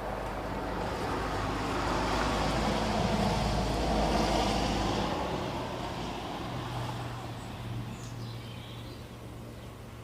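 A road vehicle passing by: a broad rumble of engine and tyres that swells to its loudest about four seconds in, then fades away.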